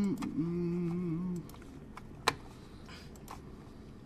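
A man's drawn-out hesitation hum ("ummm") for about a second and a half, then scattered keystrokes on a computer keyboard, with one sharper click a little past two seconds in.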